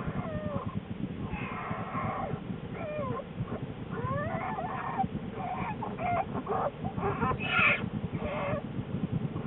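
Newborn black bear cubs squalling in the den: about half a dozen short, wavering cries that slide up and down in pitch, the loudest a little past the middle. Under the cries runs a steady low, rapid pulsing.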